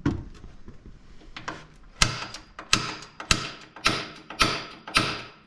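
Center punch being struck against steel to mark a hole for drilling: a series of sharp metallic strikes with a short ring, six strong ones coming about every half second from two seconds in.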